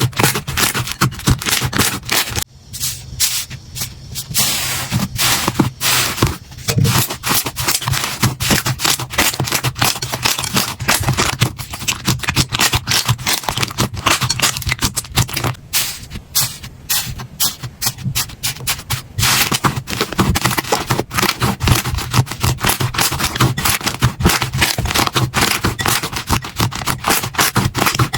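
Slime being worked by hand, giving a dense, rapid run of crackling and popping clicks with brief pauses.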